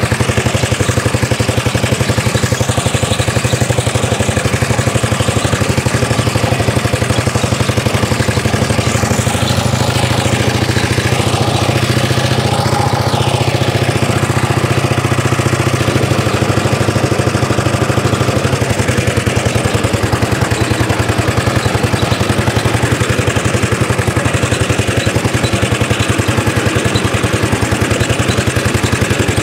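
Engine of a 1930s Dennis Z-type cylinder lawn mower running steadily as the mower drives itself across the grass.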